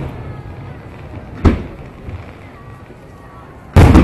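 Aerial firework shells bursting: one boom about a second and a half in and a louder one near the end, each trailing off in a rolling echo.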